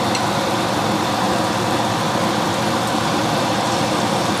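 Battered banana pieces frying in hot oil in a cast iron skillet: steady sizzling.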